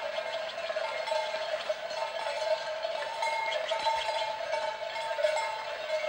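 Many cowbells on a herd of cattle clanking and ringing together without a break as the animals walk, a steady jangle of overlapping clanks.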